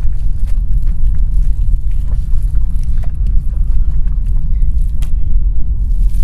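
A loud, deep, steady rumble from the animation's sound design, with faint scattered clicks and crackles over it.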